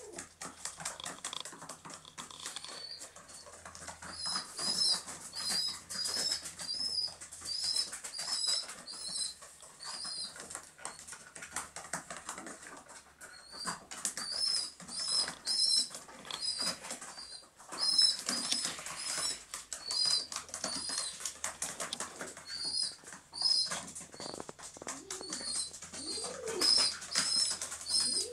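Pigeon squab begging for food with repeated high squeaks, about two a second, pausing briefly now and then. There is wing flapping among the squeaks.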